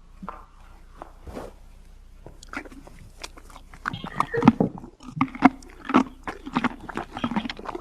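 A horse chewing carrots, with irregular crunching bites that grow louder and come faster from about four seconds in.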